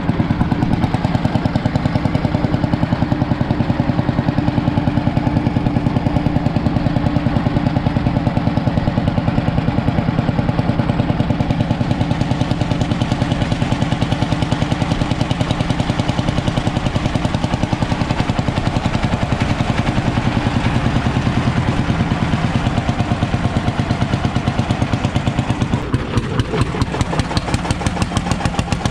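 Ursus C45 tractor's single-cylinder two-stroke hot-bulb engine running on the move, a fast, even beat of exhaust pulses. Near the end the beat turns briefly uneven.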